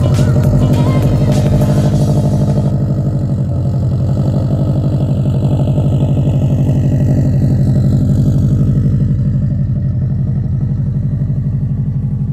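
Subaru WRX's flat-four engine idling steadily, heard close to the exhaust, with a fast even pulse to its note.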